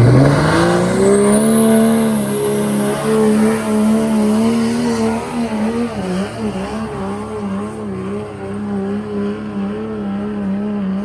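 Heavily modified Cummins 6.7 diesel pickup engine at full throttle: its revs climb quickly, then hold high with small surges, while a high turbo whistle rises and holds for a few seconds.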